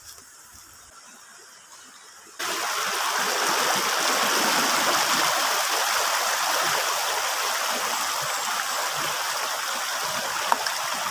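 A shallow rocky river rushing over stones, a steady loud water noise that starts abruptly about two and a half seconds in; before that only faint background.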